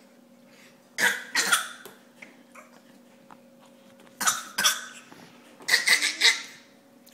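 A person coughing in short bursts: two coughs about a second in, two more a little after four seconds, and three near the end, over a faint steady hum.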